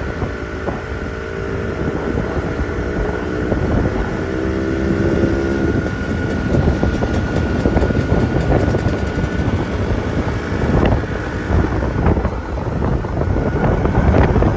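Yamaha RX 100's single-cylinder two-stroke engine running under way, its note climbing in pitch in the first few seconds, with wind buffeting the microphone.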